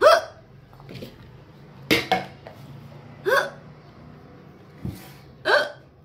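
A woman hiccuping in a run she cannot stop: four loud hiccups about a second and a half apart, each a sharp gulp with a short squeak of voice, and a couple of softer ones between.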